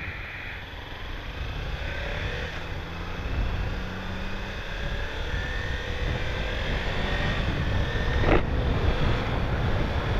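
Kawasaki Ninja 300's parallel-twin engine pulling away and accelerating, its pitch rising, with wind noise building as speed picks up. A short sharp knock about eight seconds in.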